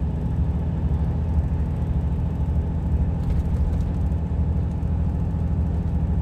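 Steady drone of a truck cab at motorway speed: the engine's low hum under road and tyre noise, unchanging throughout.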